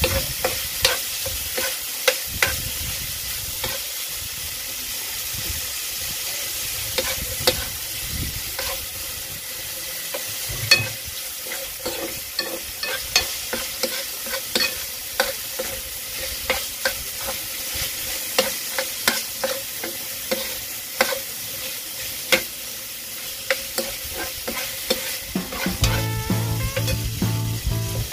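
Chicken with shrimp paste, chili and tomato sizzling in a frying pan while it is stirred, the cooking utensil knocking and scraping against the pan about once a second. Background music comes in near the end.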